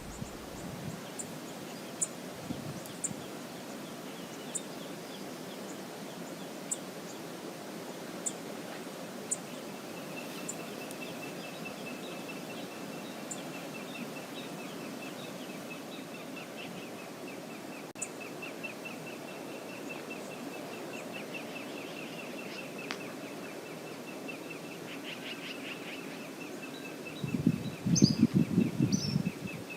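Steady rush of the Brooks River's flowing water, with a thin, rapid high-pitched pulsing trill running through the second two-thirds and a couple of short bird calls near the end. About two seconds before the end a loud burst of low buffeting rumble breaks in.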